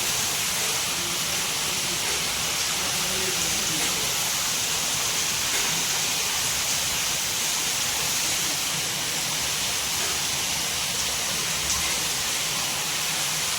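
Steady rushing noise like running or falling water, even and unbroken.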